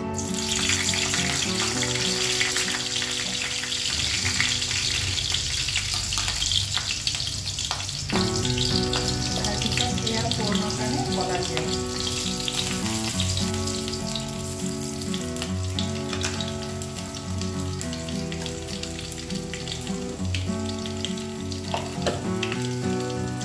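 Hot oil in a wok sizzling as ingredients are dropped in, the sizzle starting suddenly and strongest over the first few seconds, then settling to a steadier frying hiss. Instrumental background music plays underneath.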